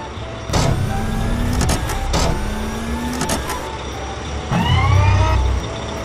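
Animated construction-vehicle engine sound effects: an engine revs up twice, each rev rising in pitch with clunks at its start and end. About four and a half seconds in comes a louder, short rising whine.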